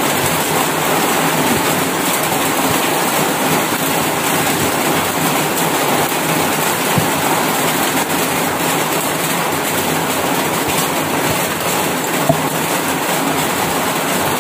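Steady heavy rain, a dense even hiss that does not let up.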